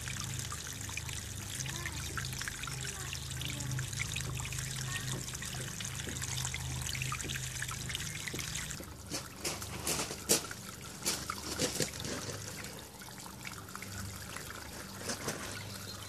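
Water trickling and pouring steadily over a stacked-rock garden waterfall into a pond. Between about nine and twelve seconds in, a short run of sharp clicks and knocks stands out over the water.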